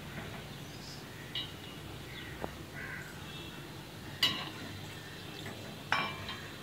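A perforated steel slotted spoon clinking against a kadai twice, sharp ringing strikes about four and six seconds in, with a few lighter taps, over a faint steady sizzle of lentil vadas deep-frying in hot oil.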